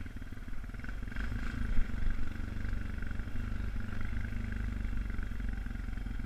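2002 Honda Foreman 450 ATV's single-cylinder four-stroke engine running steadily as the quad drives through snow, with one short knock about two seconds in.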